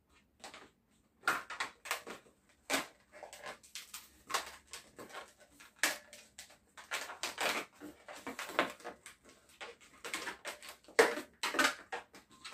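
Latex modelling balloons squeaking and rubbing against each other in short, irregular squeaks as a white balloon is twisted onto a balloon rifle body.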